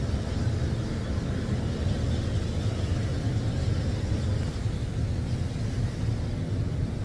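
Ocean surf breaking and washing over a rock jetty: a steady low rumble with a fainter hiss of spray.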